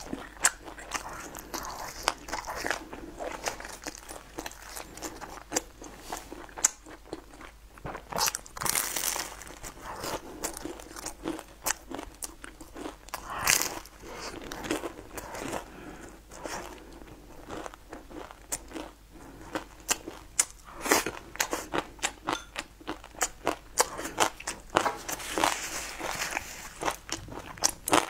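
Close-miked biting and chewing of a crisp pan-fried flatbread: repeated sharp crunches and crackles, with a handful of louder bites spread through.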